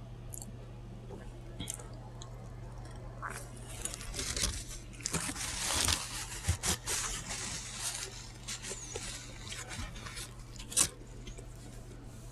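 Close-miked eating sounds: wet, crunchy chewing and lip smacking, busiest in the middle, with a sharp click near the end, over a steady low hum.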